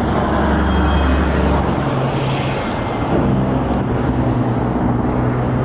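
Steady car noise while driving: low engine and road rumble with a constant haze of tyre and wind noise.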